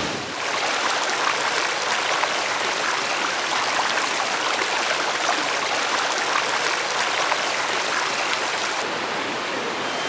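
Mountain creek water rushing over rocks: a steady, even rush.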